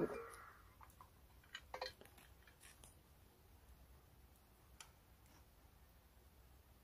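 Cast-iron camp pot lid scraping and ringing briefly as it is lifted off with a lid lifter. A few faint clicks follow as a knife works through the cooked rice, and the rest is near silence.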